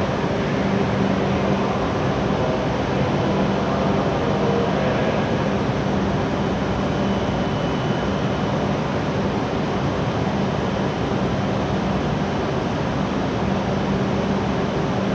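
Steady rushing noise with a constant low hum: the background of an enclosed station platform with no train moving.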